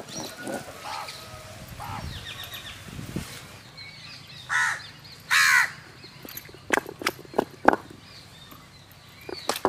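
A crow cawing twice in quick succession about halfway through, the loudest sounds here, followed by a few short sharp knocks from a stone roller working tomatoes on a stone grinding slab.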